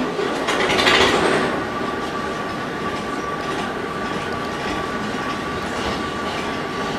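Narrow-gauge steam tank locomotive moving slowly, with a loud rush of steam about a second in, then a steady high squeal over its running noise, typical of wheel flanges on a curve.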